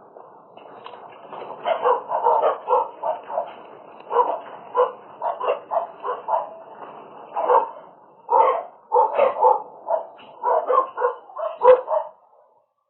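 An animal giving many short, pitched calls in quick runs, with a short pause about halfway through.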